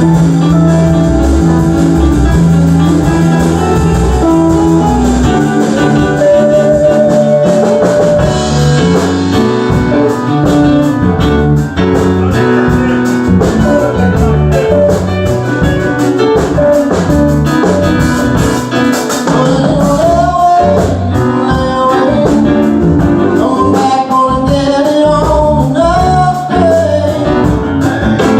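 Live band playing loudly in a blues-rock style: guitars, bass and drum kit, with a singer.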